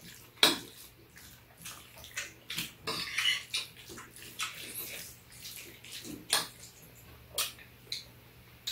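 Metal spoon and chopsticks clinking and scraping against ceramic bowls while eating, with a few sharp clinks spread through.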